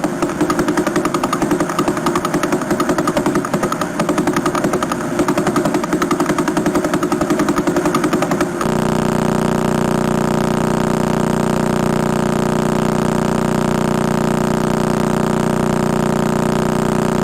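Pulsar signals picked up by a radio telescope and played as sound. First comes a rapid, even stream of pulses like fast knocking. About halfway through it switches suddenly to a steady, buzzing hum, where the pulses come so fast they blur into one tone.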